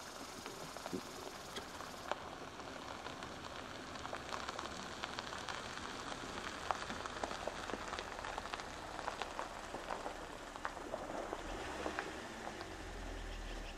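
Light rain pattering on a creek's surface, a steady hiss full of scattered small drip ticks; a low rumble comes in near the end.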